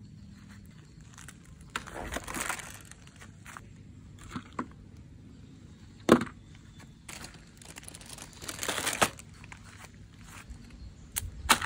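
Hard plastic toy guns being set down and handled on a cloth surface, with the crinkle of their clear plastic bag packaging twice and a sharp knock about six seconds in.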